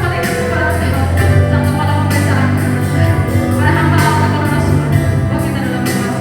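Worship song being sung with instrumental accompaniment: sustained bass notes and a regular beat under the singing voices.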